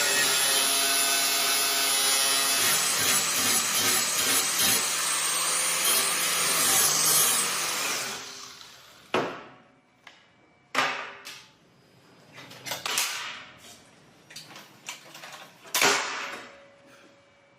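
A power tool runs steadily on steel and winds down about eight seconds in. Then come a handful of separate sharp knocks and clatters, the loudest near the end.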